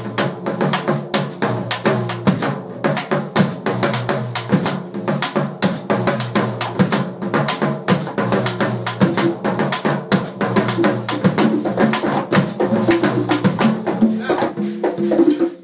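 Percussion ensemble of bass drums, toms and drum kit with cymbal playing a dense Afro-Cuban groove together, stopping abruptly near the end.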